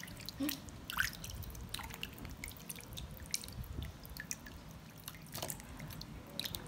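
Raw chicken wings and feet being rubbed and swished by hand in a steel bowl of water: quiet, irregular small splashes and drips.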